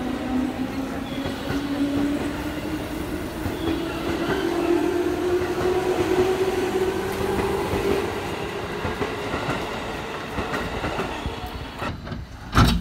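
Yamatoji Rapid electric train pulling out of the platform, its motor whine rising slowly in pitch as it gathers speed, with wheels clattering over rail joints. A single sharp loud knock near the end.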